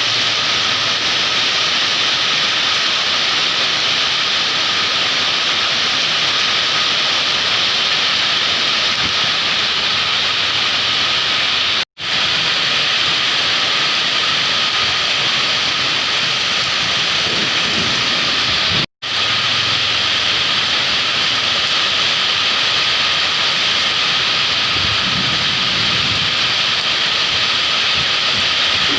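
Heavy downpour: a steady, loud hiss of rain that drops out abruptly for an instant twice, about 12 and 19 seconds in.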